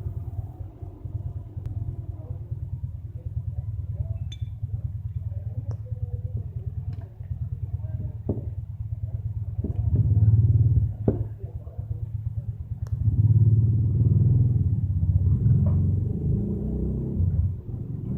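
Honda Tornado motorcycle's single-cylinder four-stroke engine running at idle with a fast, even beat. It is revved up twice: briefly about ten seconds in, then for several seconds from about thirteen seconds in.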